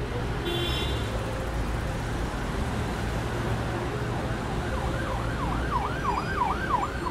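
Siren wailing in fast rising-and-falling sweeps, a few per second, which begin about halfway through over a steady low rumble.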